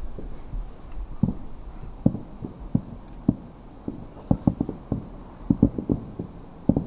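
Distant fireworks: a rapid, irregular string of low, dull booms from many shells bursting, thickest in clusters about four and six seconds in.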